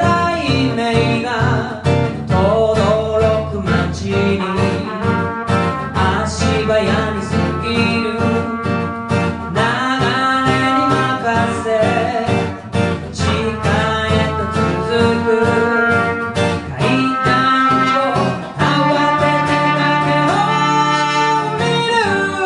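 Live acoustic music: acoustic guitar playing a steady rhythm under a gliding melody line.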